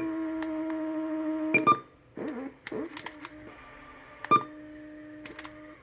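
Panasonic RQ-SX30 cassette Walkman beeping steadily while it rewinds in search of the beginning of the track. The beep cuts off with a click about one and a half seconds in. A few sharp clicks follow, and the beep returns more quietly for the second half.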